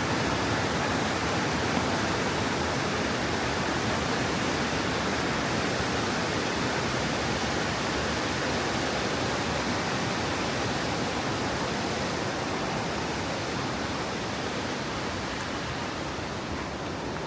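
Steady rush of a waterfall and its creek, an even hiss of water that slowly grows fainter.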